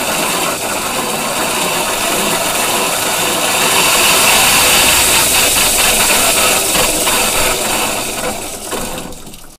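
Club Car electric golf cart's drive motor and rear end running with a loud, horrible noise from the motor and rear end area, too much noise to tell by ear where in the drive it comes from. It swells toward the middle and fades away near the end.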